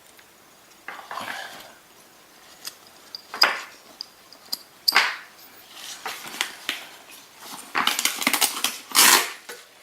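A camera carrying bag being handled and opened: scattered sharp clicks and rattles, then a denser stretch of rustling and clicking near the end.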